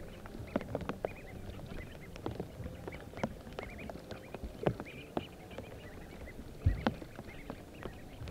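Ducklings peeping in short, soft calls over scattered clicks and knocks, with one louder thump about two-thirds of the way through.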